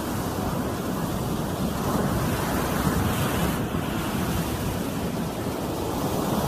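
Ocean surf breaking and washing up the beach in a steady rush, swelling about two seconds in, with wind rumbling on the microphone.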